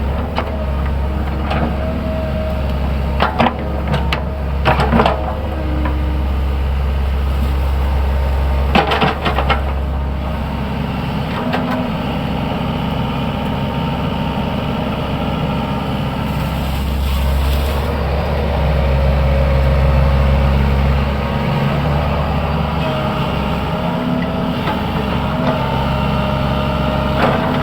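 SANY hydraulic excavator's diesel engine running steadily under work, with a few sharp clanks in the first ten seconds and the engine getting a little louder about twenty seconds in.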